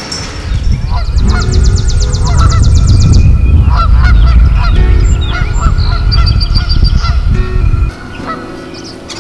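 Geese honking repeatedly, with a rapid high bird trill early on, under a loud low rumble of wind buffeting the microphone that cuts off abruptly about eight seconds in.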